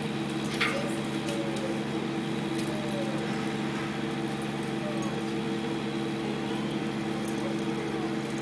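A steady machine hum made of several held low pitches, with faint short whines from a dog and light jingling of its collar chain over it. A single sharp click comes near the end.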